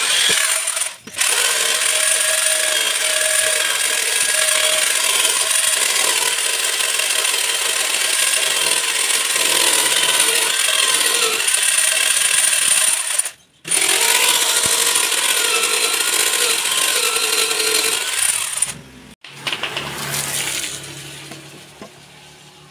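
Electric drill in a homemade wood-mortising rig running under load as its bit bores into a timber block, the motor whine wavering with the load. It cuts out briefly about a second in and again around two-thirds through; near the end it gives way to a quieter drill sound with a low hum that fades.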